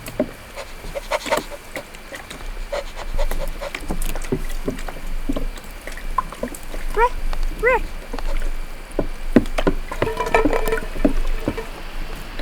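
Foley sound effects made by hand with props: scattered taps and knocks, with two short rising-and-falling animal-like calls about seven seconds in and a busier cluster of sounds near the end.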